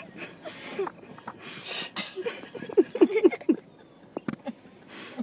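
People stifling laughter inside a car: breathy snickers, then a quick run of short chuckles about halfway through. A single sharp click comes near the end.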